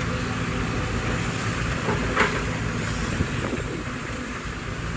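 Heavy diesel machinery running steadily: a Sumitomo 210 excavator and a dump truck tipping its load. A short clank comes about two seconds in.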